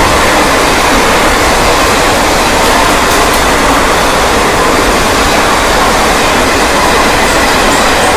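Loud, steady rush of a passenger train's old Janshatabdi-type coaches running past at speed, with wheels rumbling on the rails.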